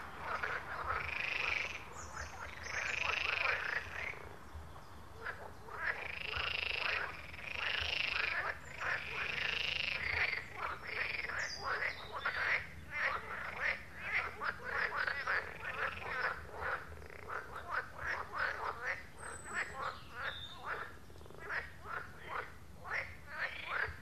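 A chorus of pond frogs croaking. For the first ten seconds long calls of about a second each repeat, then a quicker run of short croaks, a few a second, follows.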